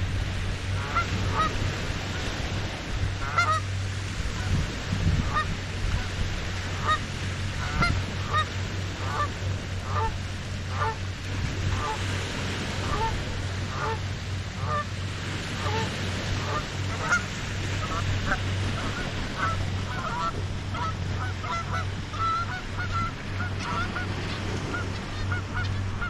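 A flock of geese honking over and over, with short calls coming thicker and faster in the second half.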